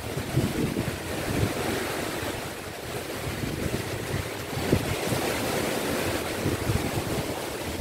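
Wind buffeting the microphone over the steady wash of sea waves on the shore.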